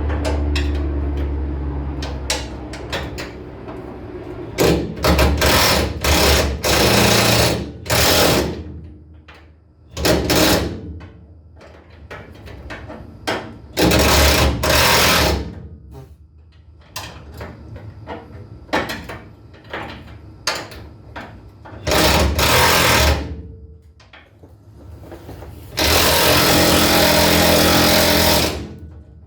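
An impact wrench hammering in repeated bursts of a second or two, with a longer burst of about three seconds near the end, as it works on the trailer hitch bolts.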